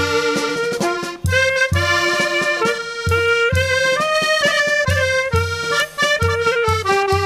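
Accordion playing a lively traditional dance tune: a stepping melody over a steady low bass beat of about two to three pulses a second.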